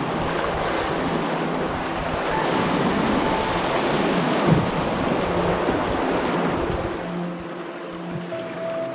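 Whitewater rushing in a river rapid, with wind buffeting the microphone; the rush eases near the end as music fades in.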